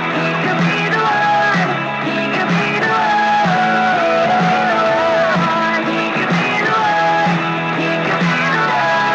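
Music with a steady beat of about two strokes a second under a gliding, held melody line.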